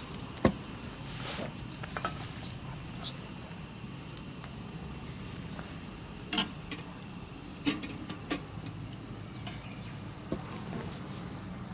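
Campfire crackling: a few sharp, scattered pops over a steady high hiss.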